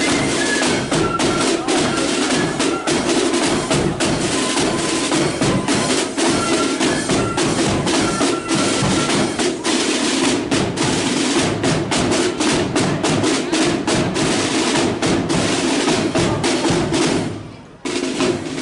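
Marching flute band's drum corps playing: massed snare drums beating a rapid, driving rhythm over a bass drum, with a few high held flute notes in the first half. Near the end the sound fades steeply, then cuts back in.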